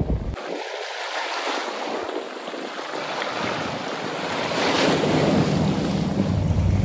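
Sea waves washing and splashing against the rocks at the foot of a seawall, with wind buffeting the microphone; the wind rumble grows stronger about halfway through.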